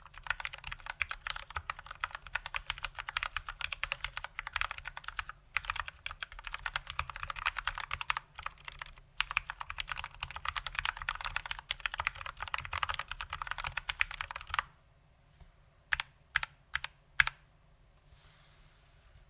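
Fast typing on a GMMK mechanical keyboard with Gateron Brown switches, lubed with Krytox 205g0 and with no foam dampening: a dense clatter of keystrokes that stops about fifteen seconds in. A few single key presses follow.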